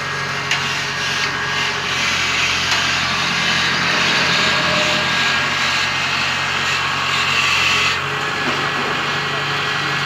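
Kubota DC-70 Plus rice combine harvester running, a steady low engine hum under a dense mechanical rattle, with a few light knocks in the first three seconds and a slight drop in level about eight seconds in.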